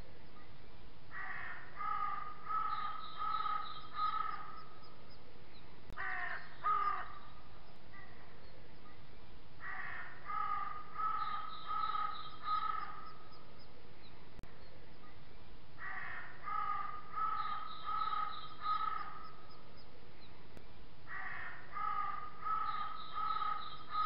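Crows cawing in runs of four or five caws, a run about every five to six seconds, with a shorter pair of calls about six seconds in. A steady hiss runs underneath.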